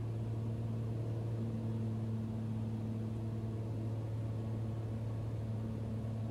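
Cessna Turbo 206's turbocharged six-cylinder Lycoming engine and propeller giving a steady in-flight drone inside the cabin, with a strong low hum and an even noise of air over the airframe.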